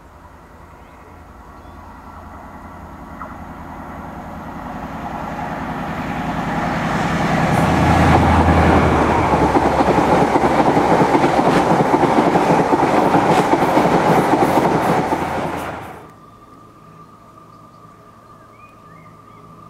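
First Great Western HST (InterCity 125) approaching and passing at speed: the sound swells as the diesel power car nears and goes by, then the coaches rush past with a rapid clatter of wheels over the rail joints. About sixteen seconds in it cuts off abruptly to a much quieter steady hum.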